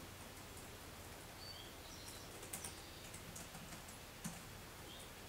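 Faint scattered clicks of a computer keyboard and mouse being used, over a low steady hum, with a few short high chirps.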